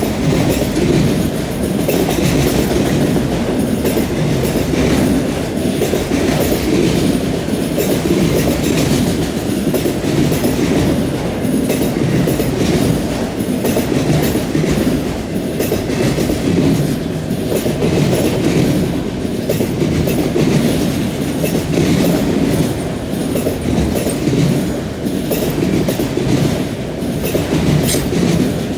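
Freight train cars rolling steadily past at close range: a continuous low rumble of steel wheels on rail with a repeated clickety-clack of wheels passing over rail joints.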